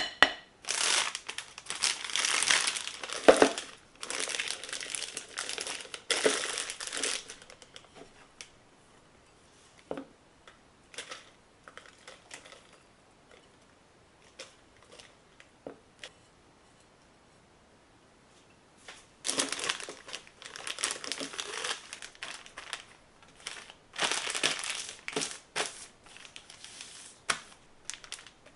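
Rubber spatula scraping and pressing crumbly butter-and-flour dough around a glass bowl, in bursts of a few seconds. Later, a zip-top plastic bag crinkles as the dough is packed into it.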